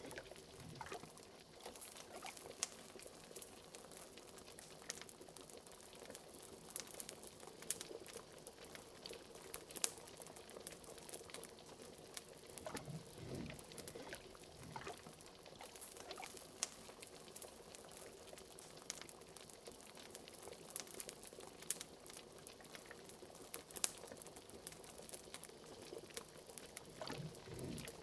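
Faint bubbling of liquid simmering in a cauldron, with many small sharp pops and crackles of a fireplace throughout.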